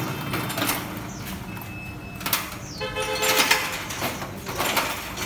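Aftermarket power liftgate on a Mazda CX-5 closing: clicks and knocks from the gate mechanism and latch, with a short electronic beep about three seconds in.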